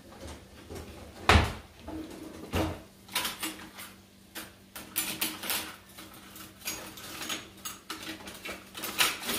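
Irregular knocks and light clatter of kitchen items being handled on a countertop. Two louder thumps come in the first three seconds, then a run of smaller clicks and taps.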